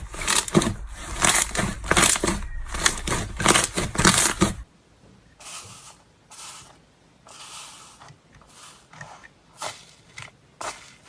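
Hands squishing and pressing slime: a quick run of crackling, crunching pops, which cuts off about four and a half seconds in to softer, separate squishes about once a second.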